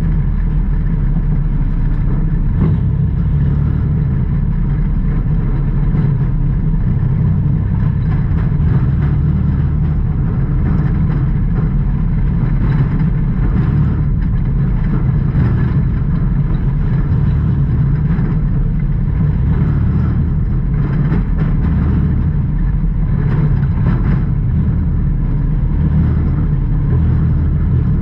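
Dirt-track race car's engine, heard from inside the cockpit, running loud and steady.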